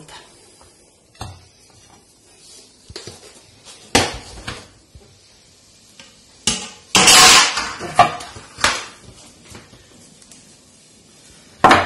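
Ceramic plates and an aluminium tart pan knocking and clattering as a baked apple tart is turned out of its pan onto a plate and flipped back onto a serving plate. There are several separate knocks, and the loudest, longest clatter comes about seven seconds in.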